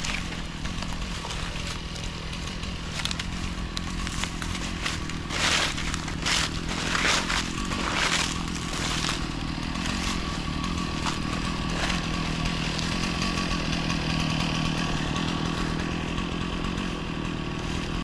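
Chainsaw engine running steadily, with several louder surges in the middle.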